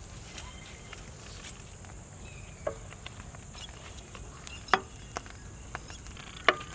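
A few sharp clicks or knocks, the three loudest about two seconds apart, over a steady high-pitched hiss.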